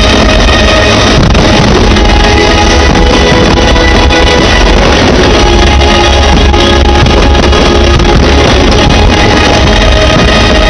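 Loud music playing continuously, with held notes and no distinct firework bangs standing out.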